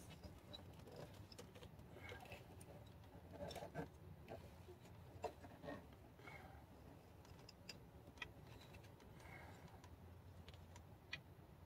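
Near silence, with a few faint, scattered small clicks and rubbing from hands pushing a hose onto its fitting beside the intake.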